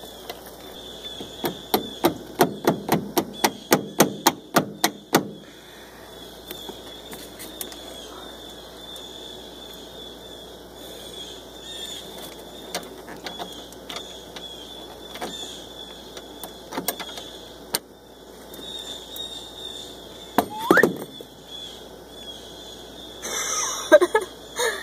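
A quick run of about fifteen sharp taps, roughly four a second, as the retaining pin is hammered out of a classic VW Beetle's inner door handle. Then a few scattered single clicks, and a brief rising squeak near the end as the handle comes free.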